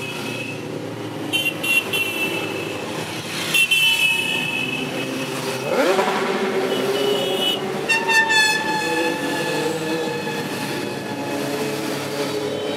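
A column of motorcycles riding past at low speed, engines running, with riders tooting their horns several times. One engine revs up about six seconds in.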